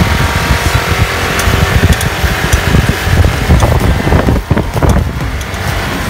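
Motorcycle engines running with a dense, loud low rumble as the bikes roll along, dipping briefly about four and a half seconds in.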